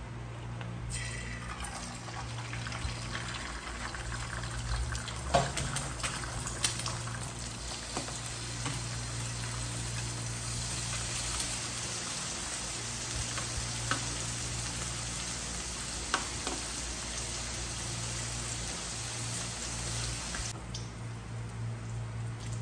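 An egg and bacon strips frying in oil in a nonstick pan. The sizzle starts about a second in, carries occasional sharp pops, and falls away near the end.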